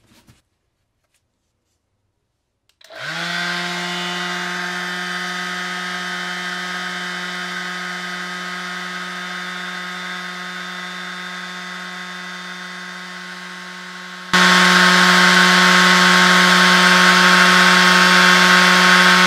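DeWalt DCW210 brushless random orbital sander switched on at its top speed setting, 7, about three seconds in, then running steadily with its pad free in the air, giving an even hum. About two-thirds of the way through it jumps suddenly much louder at its real volume, measured at about 97 dBA.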